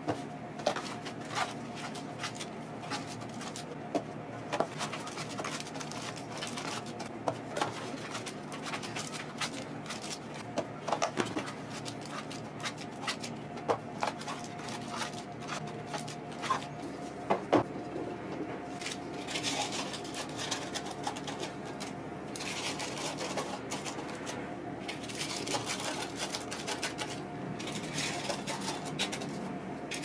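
Cardboard tea boxes and paper tea-bag sachets handled: scattered sharp taps and clicks of the packets and box. In the second half the sachets give a denser, busier rustle as they are fanned and sorted.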